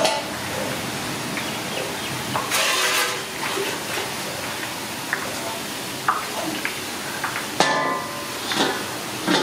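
Besan sev strands deep-frying in a wide pan of hot oil: a steady sizzle and bubbling, with two short louder noises, one about two and a half seconds in and one near the end.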